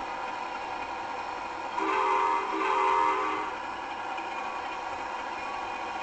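Locomotive engine idling steadily, sounding its horn in two blasts about two seconds in, the second a little longer.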